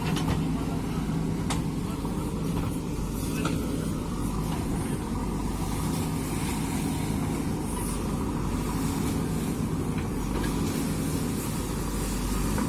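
Diesel engine of a JCB 3DX backhoe loader running steadily under working load, with a couple of faint knocks early on.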